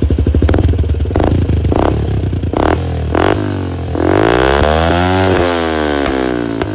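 Yamaha LC135's single-cylinder four-stroke engine through a 28mm Apido exhaust with the dB killer removed, blipped about five times from idle, then revved up in one long rise about four seconds in and falling back toward idle near the end.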